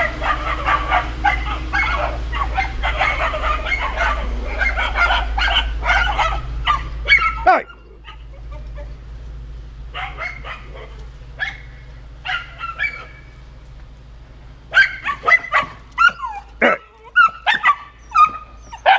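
Several small dogs barking and yapping excitedly, a dense overlapping chorus over a low steady rumble that stops about seven seconds in. After that come sparser single barks, then a fresh run of sharp barks near the end.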